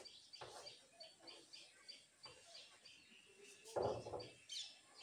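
Chalk tapping and scraping faintly on a blackboard as numbers are written, with small birds chirping faintly in the background and one louder short noise about four seconds in.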